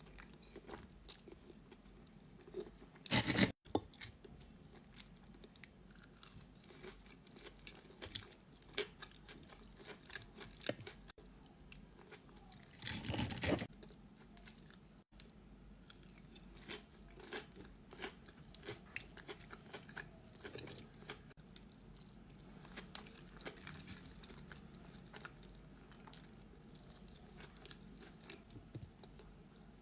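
A person chewing and biting food close to the microphone, with many small crunches and crackles and two louder, longer crunching stretches about three seconds in and about thirteen seconds in.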